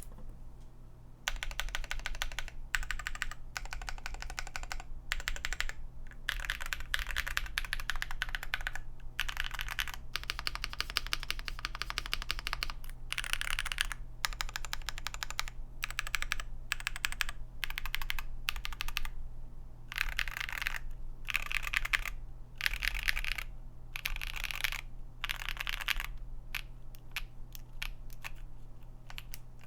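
Typing sound test on an Akko MOD-series custom mechanical keyboard built with KNC Keys Green Jacket linear switches and doubleshot PBT keycaps. The keys clack in quick runs of a second or two with short pauses between them, starting about a second in.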